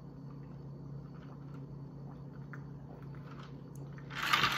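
Faint sipping and swallowing from a plastic cup over a steady low hum. About four seconds in, a loud breathy hiss starts.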